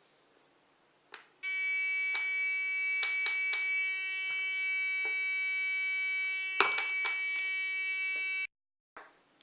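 Homemade alarm's buzzer sounding one steady, high-pitched buzzing tone for about seven seconds, then cutting off suddenly. Clicks and knocks from handling sound over it, the loudest a little before it stops.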